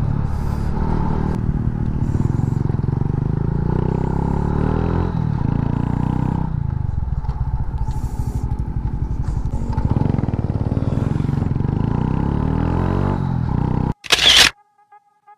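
SYM 110 motorcycle's single-cylinder four-stroke engine running on the road, heard from a handlebar camera, its pitch rising and falling with the throttle. Near the end it cuts off abruptly for a sharp camera-shutter click, then near silence.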